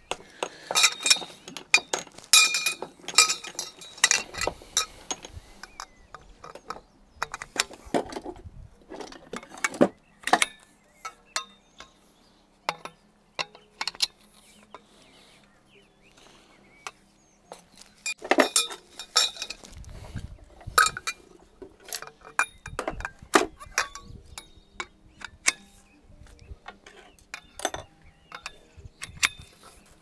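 Metal awning parts being fitted together, clinking and knocking in irregular bursts of sharp clicks.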